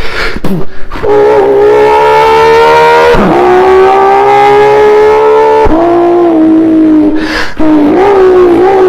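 A man imitating a car engine with his voice. He holds a buzzing engine note that climbs slowly and drops sharply twice, at about three seconds and just under six seconds in, like a car shifting up through the gears.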